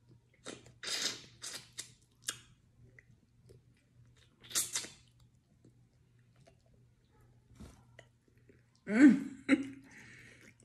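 Close-up mouth sounds of a person biting into and chewing breaded fried food, a series of short wet smacks and crunches in the first few seconds and another about halfway through. Near the end comes a louder, brief vocal sound.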